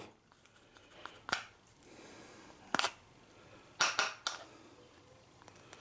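Needle-nose pliers working on the dented teeth of a washing-machine pulley, breaking off and pulling away the damaged tip: a handful of short, sharp clicks and snaps spread over several seconds, three close together near the end.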